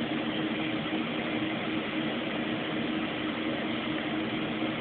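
Steady background hum and hiss, unchanging throughout, with a low hum holding a couple of steady tones.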